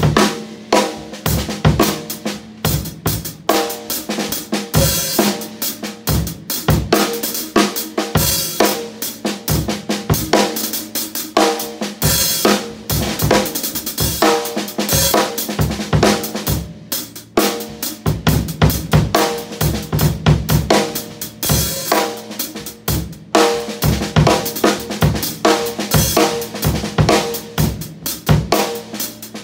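Drum kit played in a continuous groove, bass drum and snare under a steadily ridden pair of Zildjian ZBT hi-hats. The hi-hats are sheet-bronze cymbals with a clear, bright top end.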